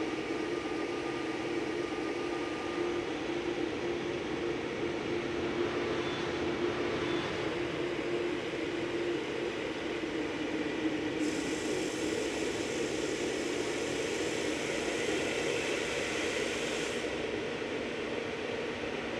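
Jet airliner engines running: a steady rushing noise with a low hum that fades out about nine seconds in. A brighter hiss comes in abruptly about eleven seconds in and cuts off about six seconds later.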